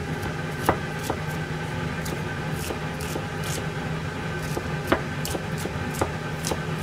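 Kitchen knife slicing garlic cloves on a plastic cutting board: irregular light taps and clicks of the blade against the board, with sharper knocks just under a second in and about five seconds in. A steady low hum runs underneath.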